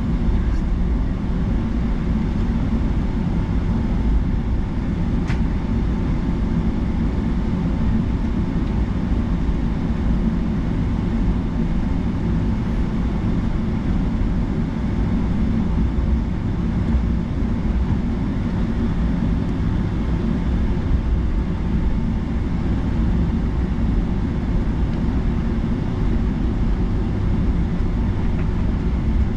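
Boeing 757-200 airliner, a steady low rumble of engines and airflow with a faint steady whine above it.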